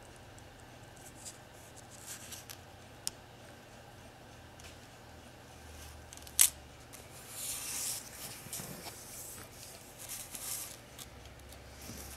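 Handling noise from a metal spiral cage pendant with a crystal point and its metal chain: light clicks and soft rustles as it is turned in the fingers, with one sharp click about six seconds in, the loudest sound, over a faint steady low hum.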